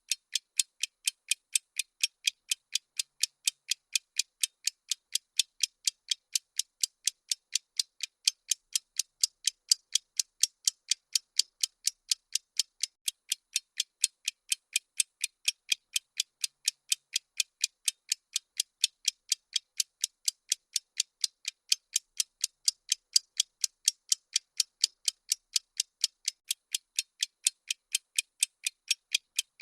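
Bomb-timer ticking sound effect: sharp, bright clock ticks repeating steadily at a fast, even rate.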